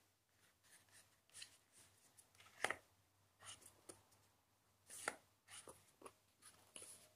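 Faint, short scrapes and rubs of hands handling a cardboard phone box and lifting off its lid, the loudest about two and a half seconds in and another around five seconds in.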